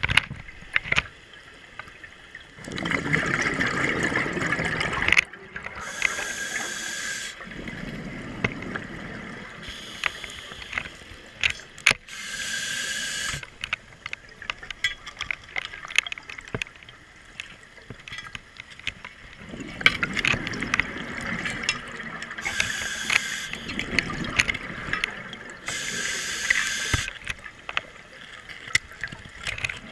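Scuba regulator breathing heard underwater: hissing inhalations alternating with longer rumbling rushes of exhaled bubbles, several breaths a few seconds apart, with scattered sharp clicks throughout.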